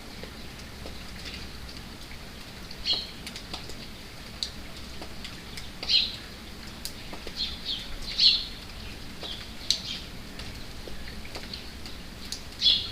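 Steady rain pattering, with scattered drop ticks, while birds give short, high chirps every few seconds; the loudest come about eight seconds in and just before the end.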